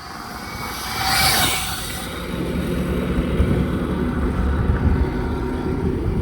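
A vehicle running: a rush of hissing noise about a second in, then a steady low rumble with a faint hum.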